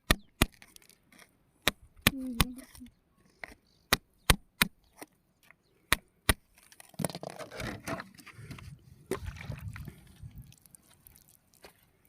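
A dozen or so sharp knocks and clicks of hard objects, spaced unevenly, followed about halfway through by a few seconds of rougher scraping and rustling.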